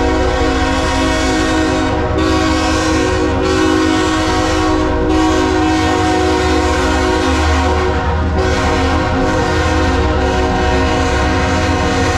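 Diesel freight locomotive's multi-note air horn blowing a long, steady chord at a grade crossing, over the low rumble of the locomotive engines.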